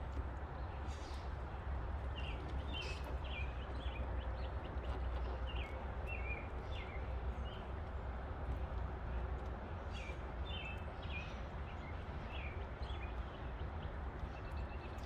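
Small birds chirping in short repeated notes over a steady low outdoor rumble, with a few light clicks.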